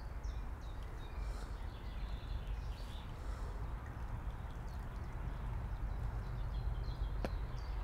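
Outdoor ambience: a steady low rumble of wind on the microphone, with faint scattered bird chirps and one sharp click about seven seconds in.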